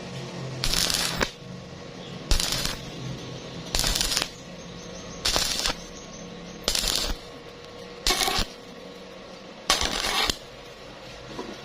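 Stick-welding arc crackling in seven short bursts of about half a second, one every second and a half or so, over a steady hum. This is an intermittent stitch-welding rhythm on thin metal, with the arc kept short to avoid burning through.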